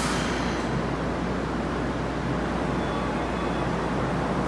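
Toei 6500 series subway train standing at an underground platform, its onboard equipment running in a steady noise with a low hum. A brief hiss comes right at the start.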